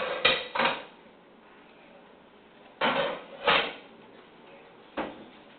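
Kitchen clatter of pots and utensils being handled: two knocks near the start, two more about three seconds in, and a single one near the end.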